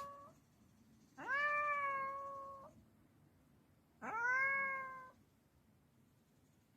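A cat meowing: two long, drawn-out meows, each rising at the start and then held, the second about three seconds after the first, following the end of an earlier meow.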